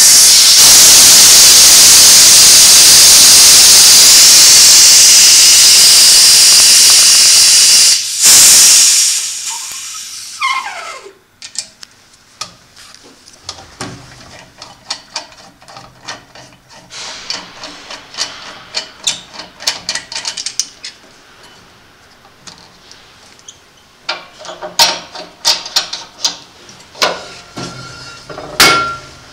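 Loud hiss of high-pressure air venting at the fill station of a 2001 Bauer breathing-air compressor for about eight seconds, with a second short burst that dies away in a falling squeal. After it, scattered metal clicks and knocks as the cylinder fitting is handled.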